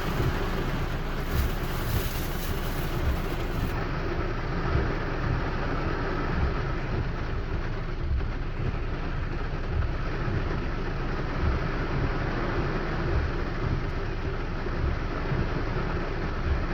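Steady rain falling, an even hiss with a deep rumble underneath.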